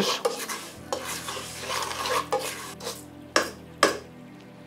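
A spatula stirring and scraping basmati rice as it toasts in hot oil and spices in a pot, with a light frying sizzle. Two sharper strokes come near the end.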